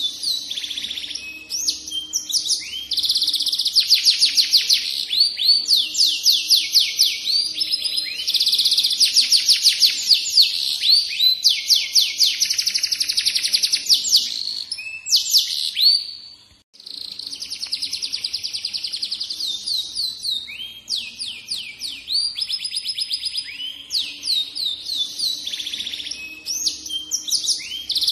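Yellow F1 canary singing a long, continuous song of fast trills and rapidly repeated high notes, with one brief pause a little past halfway.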